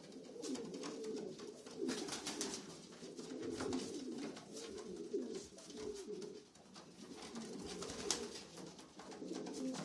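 Many racing pigeons cooing together in a small loft, a continual overlapping low cooing with scattered wing flutters and scuffling.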